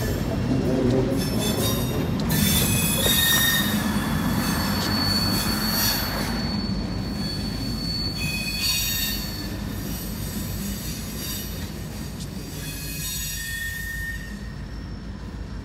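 A short freight train of gondola cars rolling away on a spur track: steel wheels squealing in repeated bursts over a low rumble, the whole sound slowly fading as the train recedes.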